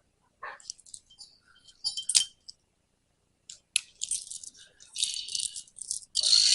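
Metal tools and parts clinking and rattling during work on a hydraulic cylinder: scattered clicks, a sharp knock about two seconds in, then denser, continuous rattling from about halfway on.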